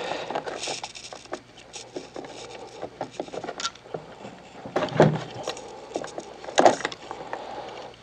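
Needle-nose pliers and hands working spade connectors off a circuit breaker's terminals in a plastic air-mover housing: small clicks, scrapes and rattles, with two louder knocks about five seconds in and a moment later.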